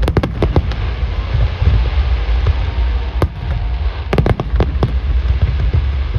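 Aerial fireworks bursting: a rapid string of sharp bangs at the start, a single loud bang about three seconds in, and another quick cluster of bangs between four and five seconds, over a steady hiss and low rumble.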